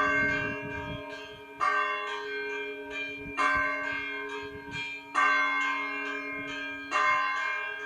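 Orthodox church bell ringing to call the faithful to service. A heavy stroke comes about every second and three-quarters, its tone ringing on between strokes, with lighter strokes in between.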